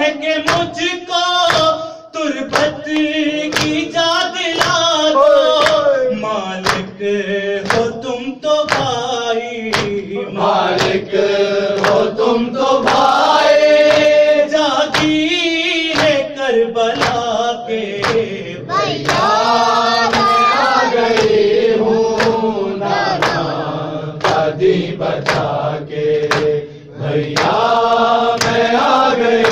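Male voices chanting an Urdu noha, a lead reciter with others joining in, over a steady beat of sharp hand strikes: the matam (chest-beating) that keeps time with the lament.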